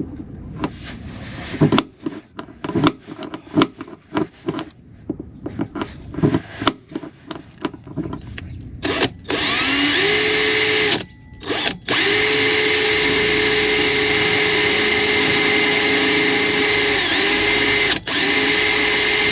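A run of sharp knocks and clatter, then about halfway through a power drill spins up and runs at a steady high whine, stopping and restarting twice.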